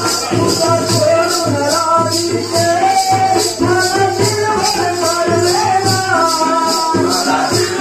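A man singing a Marathi devotional song live, accompanied by a hand drum and a fast, steady jingling beat.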